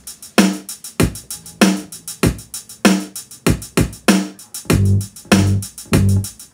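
A recorded music track with a programmed drum beat, a little under two hits a second, playing through a small full-range PA speaker with a Tapco by Mackie SW10 active subwoofer switched in and set to nominal gain. A bass line with held low notes comes in about five seconds in.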